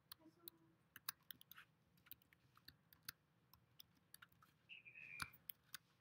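Near silence broken by faint, irregular clicking of computer keys, several a second at times. About five seconds in there is a short high squeak and a soft thump.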